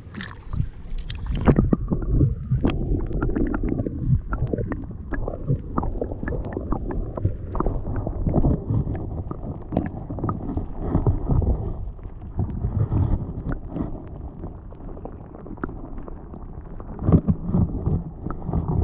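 Water sloshing around the camera as it goes under, in the first second or two, then a muffled underwater rumble with many small knocks and gurgles, heard through the submerged camera in the sea.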